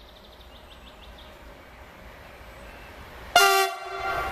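Freight train hauled by Bombardier TRAXX electric locomotives approaching, its running noise slowly growing louder; about three seconds in the lead locomotive gives one short, loud horn blast. Faint bird chirps at the start.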